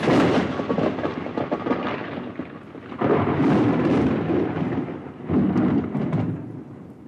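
Thunder rolling in three peals: a sudden crash right at the start, then fresh rumbles about three and five seconds in, dying away toward the end.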